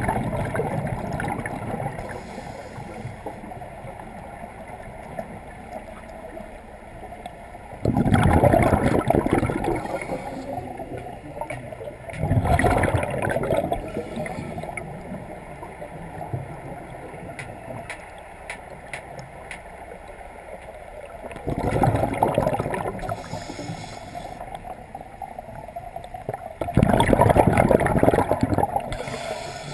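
A scuba diver's exhaled bubbles pouring from the regulator, heard underwater: five loud rushes of bubbles, each a second or two long and several seconds apart, with a lower steady background between them.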